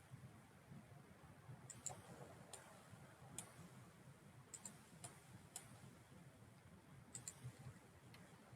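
Faint computer mouse clicks scattered through otherwise quiet room tone, about a dozen in all, some in quick double-click pairs.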